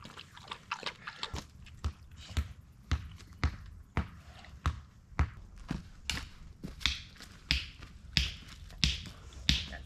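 Footsteps walking over grass and dirt at about two steps a second, each step a short thud, with a brushing swish on the later steps.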